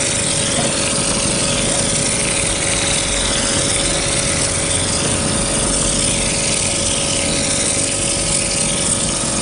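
2B mortar spraying machine running as mortar is sprayed from the hose gun onto a brick wall: a loud, steady hissing rush with a constant hum underneath.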